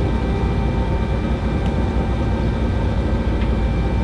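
Steady hum of a fishing boat's engine running, with a low rumble and a few faint steady whining tones over it.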